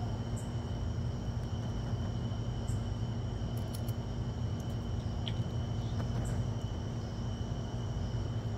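A steady low hum with a faint, steady high-pitched tone above it and a few faint clicks.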